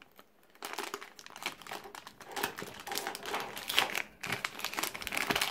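Thin plastic packaging bag crinkling and crackling as it is handled and pulled open by hand to get at a cable adapter inside, starting about half a second in and going on in quick irregular bursts.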